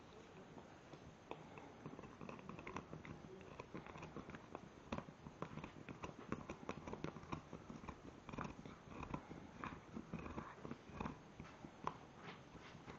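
Staffordshire bull terrier puppy gnawing an antler: its teeth scrape and click on the antler in quick, irregular little knocks, starting about a second in.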